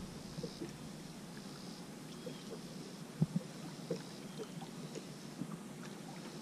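Faint ambience on a boat on open water: light lapping against the hull with scattered small knocks, one sharper knock about three seconds in.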